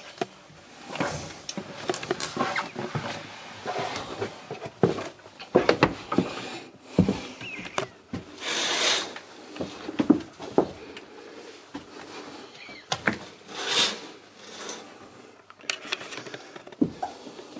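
Irregular knocks, clicks and rustling from someone moving through a small wood-panelled cabin with a handheld camera, with a few longer hissing rustles partway through.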